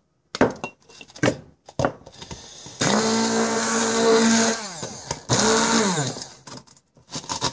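A few plastic knocks and rattles, then a handheld electric blender grinding snack crackers: it runs at a steady whine for about two seconds, then again for about a second, its pitch falling each time it is released.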